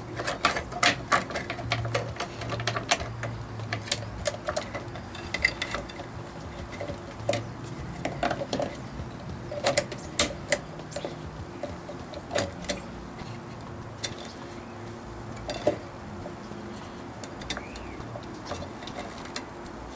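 Thin steel band saw blade being threaded by hand into a Milwaukee portable band saw, clicking and tapping against the saw's metal guides and wheels in irregular small metallic clicks.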